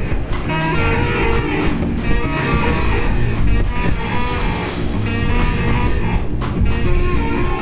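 Live experimental jazz-noise band playing loud and dense: plucked strings over bass and drums, with many short pitched notes.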